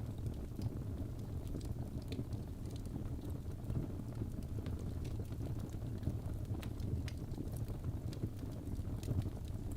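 Wood fire burning in a fireplace: a steady low rumble of flames with scattered sharp crackles and pops, several a second.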